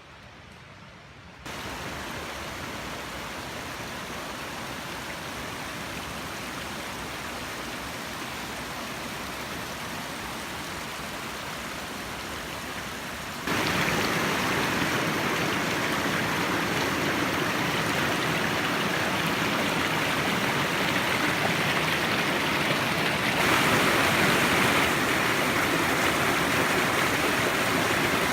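Mountain river water rushing steadily, jumping suddenly louder shortly after the start, again about halfway through, and once more near the end.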